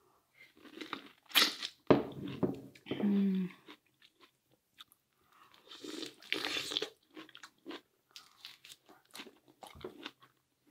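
A person eating fresh orange segments: wet bites, sucking juice from a segment and chewing, in irregular bursts with short pauses.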